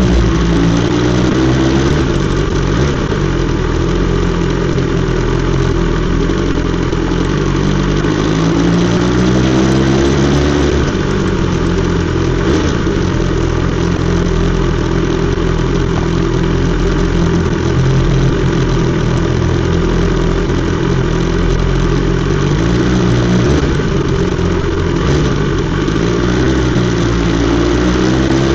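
BMW S 1000 XR's inline-four engine through an Akrapovic exhaust, running continuously with the revs climbing and falling several times. The clearest climb runs from about eight to eleven seconds in and ends in a sharp drop.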